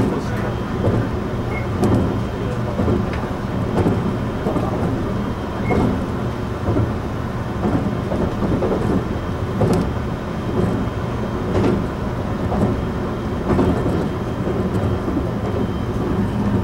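Taiwan Railway EMU700 electric multiple unit running, heard inside the passenger car: a steady low rumble from the wheels on the rails with a motor hum, and faint knocks every second or two.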